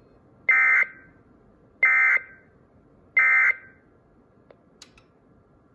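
Sage EAS ENDEC sending the Emergency Alert System end-of-message (EOM) signal: three short, identical bursts of data-tone screech, about a third of a second each and about 1.3 seconds apart, marking the end of the alert. Two faint clicks follow near the end.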